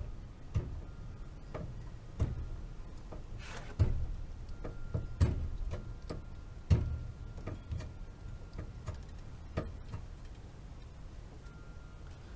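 Scattered clicks and knocks of tools and metal fittings being handled, about a dozen at irregular intervals.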